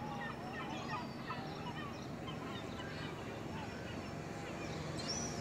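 A colony of seagulls calling, with many short, overlapping cries at once.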